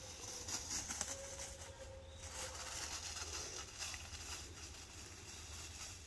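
Faint rustling with light, irregular crackles in dry leaf litter, under a faint steady hum.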